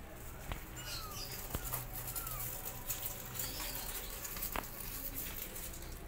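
Newborn kittens crawling and scrabbling on cardboard, their claws and paws making a light scratchy rustle with a few sharp taps, and a couple of short faint mews about one and two seconds in.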